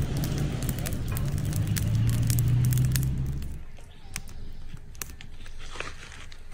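Campfire crackling and popping over a steady low rumble. About three and a half seconds in, the rumble drops away and only quieter scattered crackles remain.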